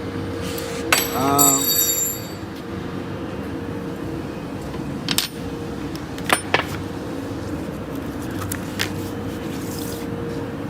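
Folding-box tape-applying machine running with a steady hum. A few sharp clicks and knocks come in the middle, and a brief voice sound comes about a second and a half in.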